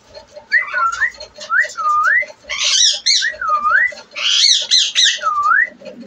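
Indian ringneck parakeet screeching harshly twice, amid a run of short whistles that dip and rise again, repeated about every half second to second.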